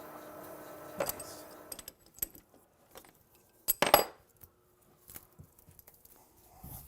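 A steady motor hum stops about a second in, followed by scattered metallic clinks and clatters of small metal tools and parts being handled and set down, the loudest near the middle.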